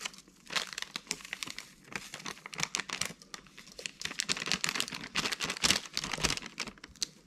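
Thin plastic sachet crinkling and crackling repeatedly as it is squeezed and shaken to empty powder out of it.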